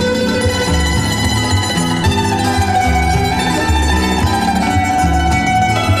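Early-1970s British folk-rock recording in an instrumental passage: plucked acoustic strings over a bass line that moves in a steady rhythm.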